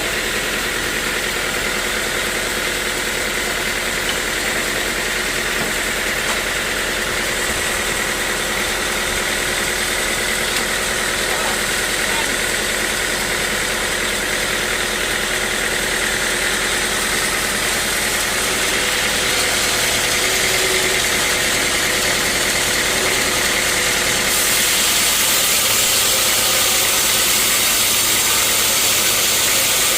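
Sawmill machinery running steadily with a constant motor hum and hiss. The sound changes about three-quarters of the way through, turning brighter and hissier.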